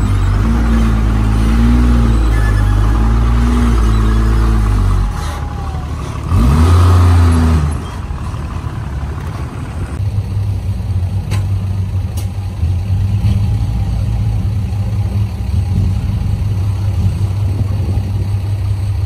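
Heavy diesel engine of earthmoving machinery running at a steady pitch, then revving up and dropping back about six seconds in. About ten seconds in the sound changes abruptly to a rougher low engine rumble, with a couple of sharp clicks.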